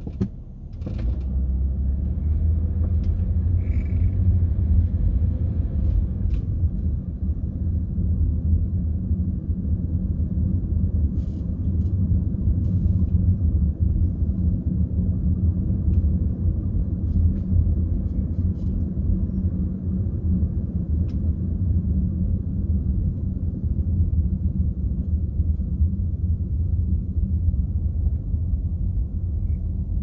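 Steady low road and engine rumble inside the cabin of a 1999 Ford Taurus. It swells about a second in as the car pulls away from a stop, then holds even while the car drives on.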